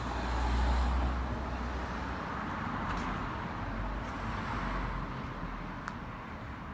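Street traffic: a car going by, its tyre and engine noise loudest about a second in, then fading to a steady road hum.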